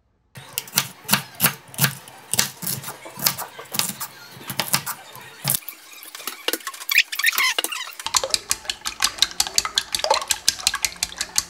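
Eggs being beaten with chopsticks in a ceramic bowl: fast, even clicking against the bowl through the last few seconds. Before that come a run of irregular sharp knocks and clatter of kitchen work at the counter.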